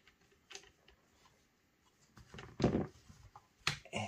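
Handling noise from working on a paintball marker at a table: a few light clicks, then a louder knock and rustle about two seconds in, and more clicks near the end.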